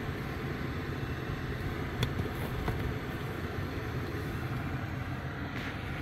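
Small 800-watt stainless steel electric kettle heating water toward the boil, a steady rumble, with a light click about two seconds in.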